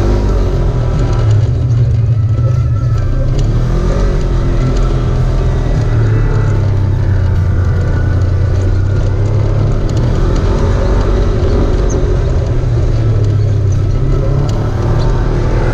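Off-road vehicle engine running with a strong, steady low drone, its revs rising and falling every few seconds.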